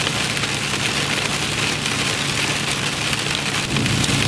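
Dense, steady patter of hail hitting a vehicle's roof and windshield while driving, over a low steady drone of the vehicle on the road.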